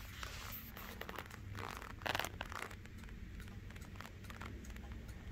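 Vintage German eight-day pendulum wall clock ticking. A louder burst of rustling and crackling comes about two seconds in.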